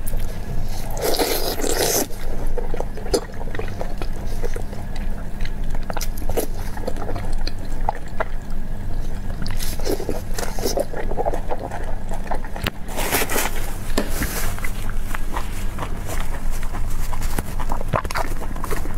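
Close-miked eating sounds: wet chewing and slurping on sauced meat held in the hands. The loudest bursts come about a second in, around ten seconds in and around thirteen to fourteen seconds in.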